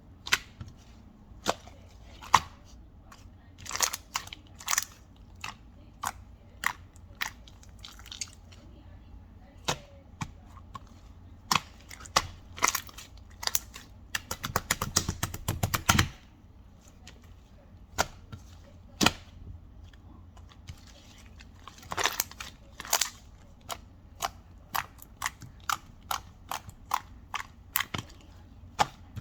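Computer keyboard keystrokes: scattered sharp key clicks, one or two a second, with a quick run of rapid typing about halfway through.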